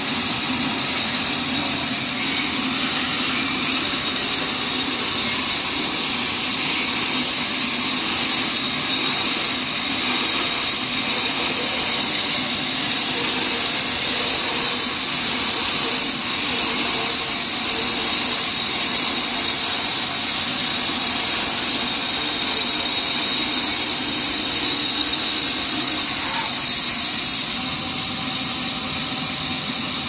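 Horizontal band sawmill cutting through a log, its blade and motor making a loud, steady, high-pitched whine and hiss.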